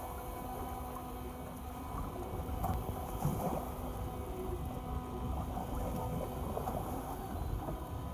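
A small fishing boat's motor humming steadily, with water sloshing against the hull and a few light knocks.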